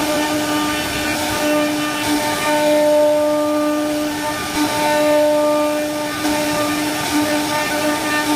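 CNC wood carving router's spindle running with a steady whine over a hiss of the bit cutting wood, dipping briefly now and then.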